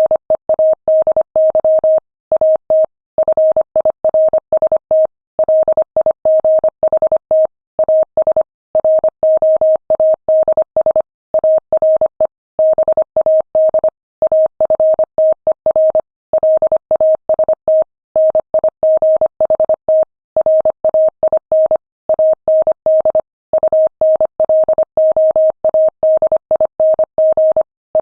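Morse code sent at 25 words per minute: a single mid-pitched beep keyed on and off in quick dots and dashes, with short gaps between letters and longer ones between words.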